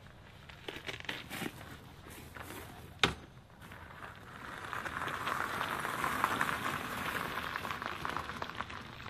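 Fat tyres of a loaded e-bike and its trailer wheels crunching over gravel as the bike pulls away. It is preceded by small crunches and one sharp knock about three seconds in, and the crunching holds for several seconds and fades near the end.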